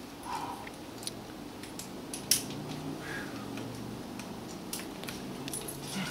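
Carabiners and quickdraws racked on a climber's harness clinking in scattered sharp metallic clicks, the loudest a little over two seconds in.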